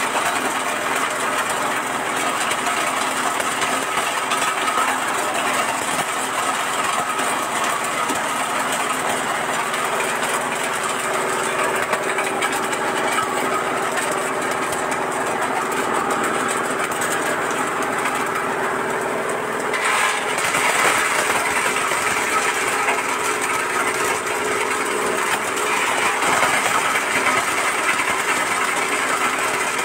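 Engine-driven areca nut cracking machine running steadily, with nuts rattling and cracking through it. About 20 s in, the rattling gets louder.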